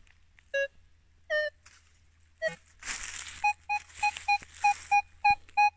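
Metal detector giving target tones as its coil passes over a fallen log: a few separate beeps, then from about halfway a quick run of short, even beeps, about four a second, over a rustle. The tones mark a piece of metal lodged inside the log's wood.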